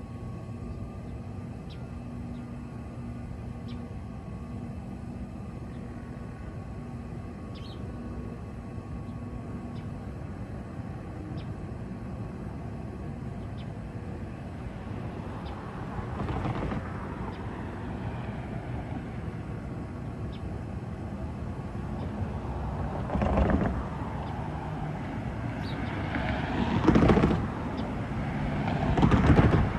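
Steady low outdoor rumble with a few faint high chirps, then from about halfway several louder rushing swells that grow stronger toward the end.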